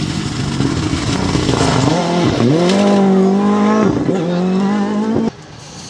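Rally car engine at full throttle, accelerating away out of a gravel corner: the note climbs and holds high and steady, dips briefly at a gear change about four seconds in, then drops away suddenly near the end.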